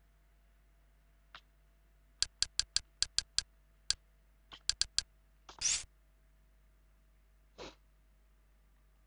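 Quick, sharp clicks of a media-center menu as the highlight steps through a list: a faint one, then a fast run of seven, a single click and a run of four, each click a move of the cursor. A longer hiss-like sound comes about halfway through and another shorter one near the end, as an item is chosen.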